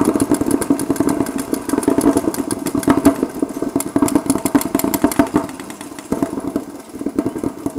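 Rapid paintball marker fire from several guns, many shots a second in long overlapping strings; it eases off about six seconds in and picks up again near the end.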